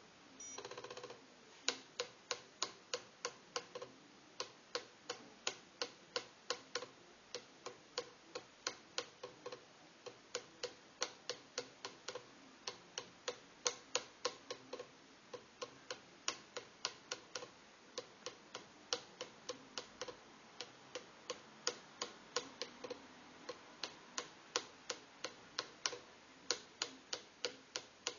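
Fidelity Challenger thermal printer (Model FP) printing after repair: a steady run of sharp ticks, about three or four a second, as it prints line by line. A short burst of motor whirr about a second in, before the ticking starts.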